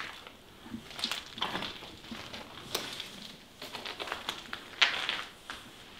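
Footsteps crunching on debris, uneven steps with a sharper crunch about five seconds in.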